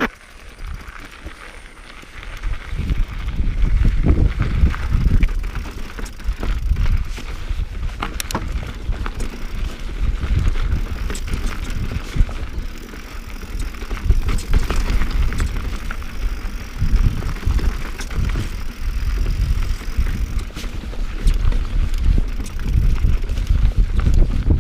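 Mountain bike being ridden over a rocky trail: tyres rolling and chain and frame rattling, with scattered knocks as the wheels hit rocks. Wind buffets the microphone, getting louder as the bike picks up speed about two seconds in.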